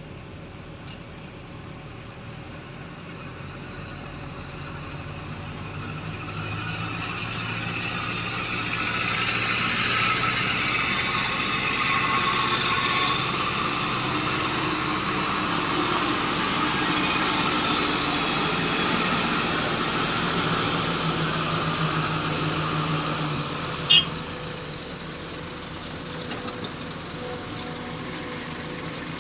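Heavy vehicle engine running, growing steadily louder over about ten seconds, holding, then easing off, as if the machine approaches and moves past. A single sharp click near the end.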